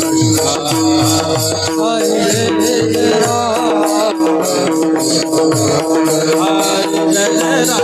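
Devotional bhajan music. A held drone note sits under a wavering melody line, while hand-drum strokes with sliding bass tones and jingling cymbals keep a steady rhythm.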